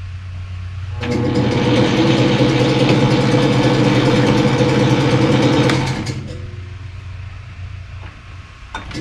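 Metal lathe under power for a threading pass on a bolt, taking a 10-thousandths undercut to clean up a damaged thread. About a second in, the spindle and gear train start and run loudly and steadily for about five seconds, then wind down as the lathe stops, over a low steady hum.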